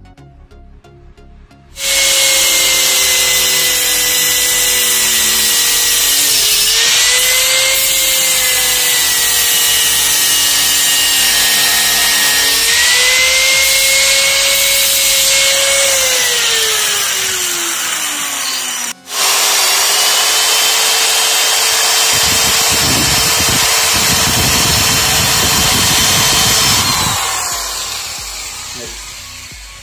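Electric angle grinder with an abrasive disc running and grinding a wooden branch. Its high whine dips in pitch under load and slows about two-thirds through, then stops briefly. It starts again at full speed, with rough grinding noise near the end, before winding down.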